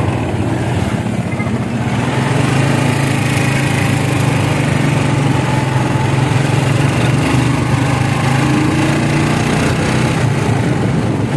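Small engine of a motorcycle with sidecar running steadily while riding along, with a brief rise in pitch about three-quarters of the way through.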